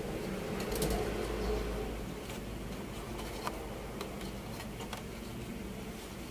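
Faint scattered clicks and light handling noise from hands working on a circuit board, over a low steady rumble that eases off about two seconds in.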